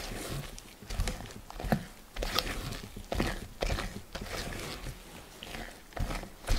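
A spatula folds thick cocoa macaron batter against the side of a bowl (macaronage), making irregular wet scrapes and slaps, roughly one or two strokes a second.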